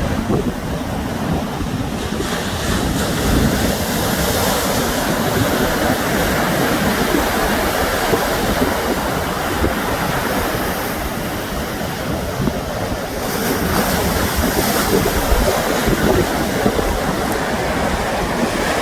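Sea waves breaking and washing on the shore, with wind rumbling on the microphone. The surf swells louder twice, a few seconds in and again past the middle.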